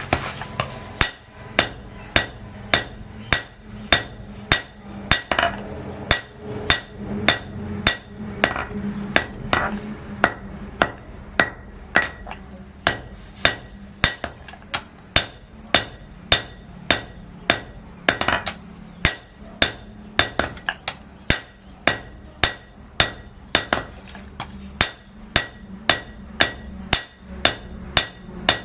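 Blacksmith's hand hammer forging iron on an anvil: a steady run of ringing metal blows, about two to three a second.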